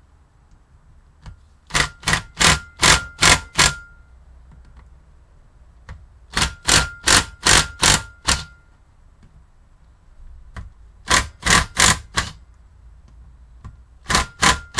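Cordless impact driver with a star bit, loosening the bolts on a Renault F7P 16-valve cylinder head, blipped in short bursts of hammering: four runs of five or six quick blips, each run with the motor's whine under it. The bolts are tight and the tool is used to break them free.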